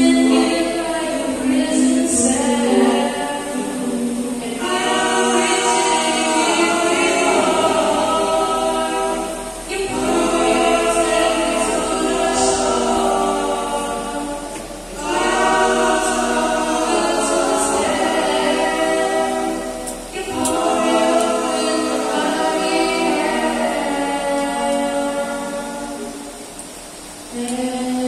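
Male a cappella vocal group singing in close harmony through microphones and a PA, with no instruments. The song moves in phrases a few seconds long, with short breaks between them and a longer break near the end.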